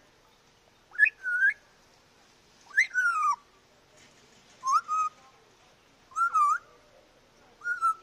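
An African grey parrot whistling: five two-part whistles about one and a half seconds apart, each a quick upward swoop followed by a short held note.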